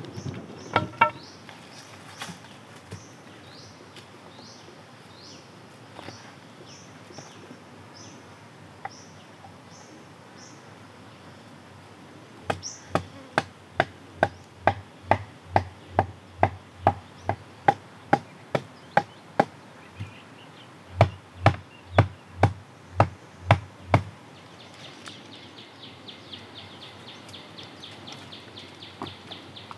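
A long-handled digging tool striking hard into dirt, about two blows a second in a long run, then a short pause and a second run. Repeated short falling bird chirps come before the blows, and a steady pulsing insect buzz starts near the end.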